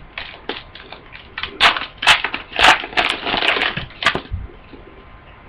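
A foil trading-card pack being torn open and its wrapper crinkled, in a run of irregular crackling rustles and sharp clicks that dies down about four seconds in.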